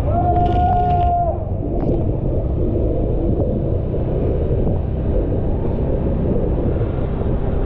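Motorbike riding along, with a steady low rumble of engine and wind. Near the start comes a single steady tone about a second long, like a horn beep.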